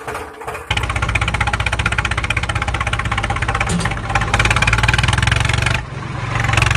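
Tractor engine sound effect running with a fast, even chugging. It starts about a second in, dips briefly near the end, then picks up again.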